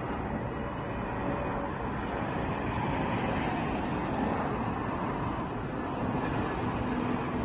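Airbus A320's twin turbofan engines heard as the airliner flies low overhead: a steady rushing noise, slightly louder around the middle.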